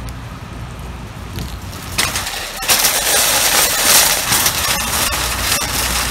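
A shopping cart pushed out across a wet parking lot in the rain: a loud, steady hiss of rain and wheel noise that comes up suddenly about two seconds in, over a low hum before it.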